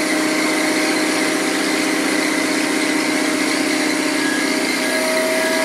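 Engine of a marina boat lift running steadily as it raises a sailboat out of the water, an even hum with a steady higher whine over it.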